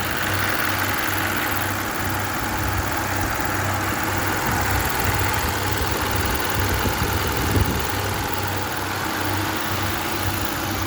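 Kia Optima's four-cylinder petrol engine running steadily at idle to light throttle, even and without stumbling, now that the misfiring cylinder-2 ignition coil and worn spark plug have been replaced. One brief thump about three-quarters of the way through.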